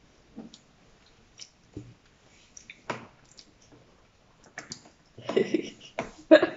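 Close-up mouth sounds of a person chewing food: sparse wet clicks and smacks. About five seconds in comes a louder, short vocal sound.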